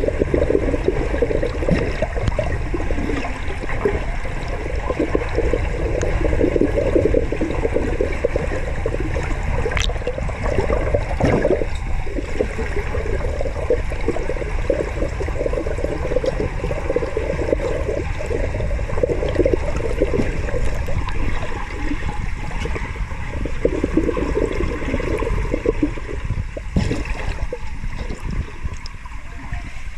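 Muffled, continuous gurgling and rushing of pool water, as picked up by a camera held underwater, with a few faint knocks.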